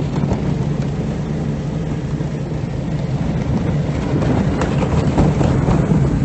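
A vehicle travelling across lake ice: a steady engine drone with rattling and scattered knocks, growing a little louder in the second half.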